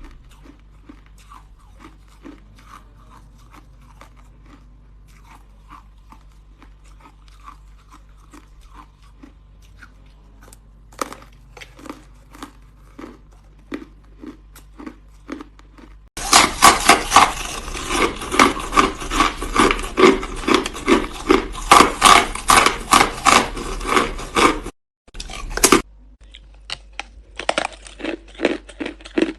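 Hard ice being bitten and chewed close to the microphone: soft, sparse crunches at first, then loud, rapid crunching starting about halfway, which breaks off briefly and resumes with quieter crunches near the end.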